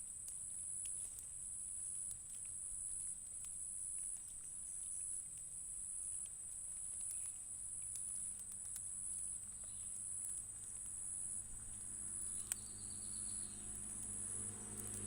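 Insects buzzing steadily at a high pitch, swelling in a pulse about once a second. Near the end a low engine-like rumble grows underneath.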